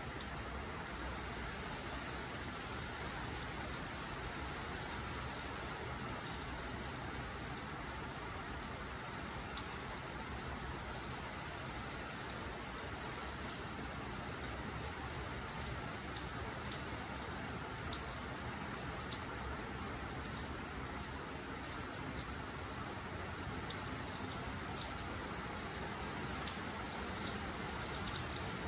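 Steady rain falling on wet pavement: an even hiss with many small ticks of individual drops.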